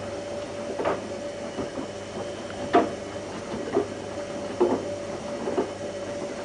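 Whirlpool AWO 3631 front-loading washing machine running a 40°C wash: a steady motor hum as the drum turns, with the laundry thudding about once a second.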